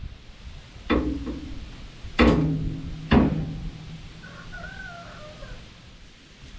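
Three loud knocks, each with a short ringing tail, about one, two and three seconds in; after them a rooster crows faintly in the distance.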